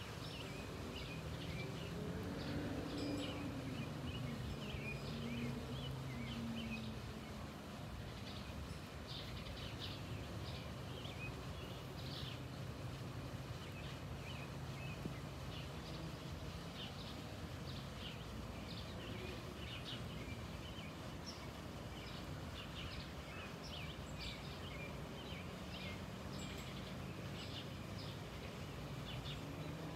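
Boeing 767 airliner passing high overhead: a low, steady jet rumble, with engine tones gliding down in pitch during the first several seconds. Small birds chirp in short calls throughout.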